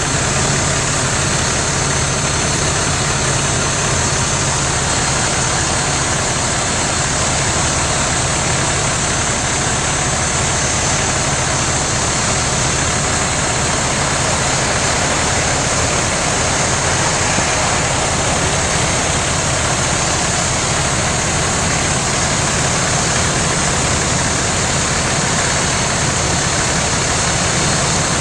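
Fire engine's engine running steadily at pumping speed, driving its fire pump to send water into a 4-inch supply hose.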